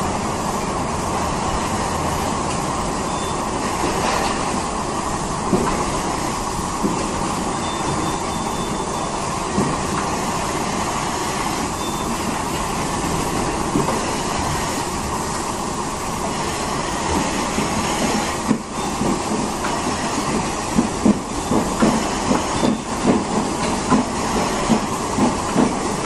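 Machinery of a rotary goat milking parlour running: a steady rumble and hiss from the turning platform and milking equipment, with irregular knocks and clanks in the last third.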